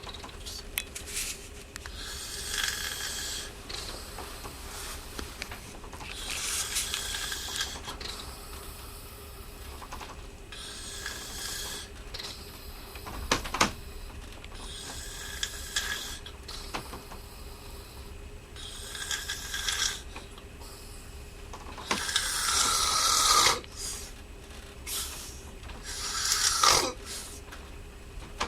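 A person snoring, one snore about every four seconds, with a longer, louder snore near the end.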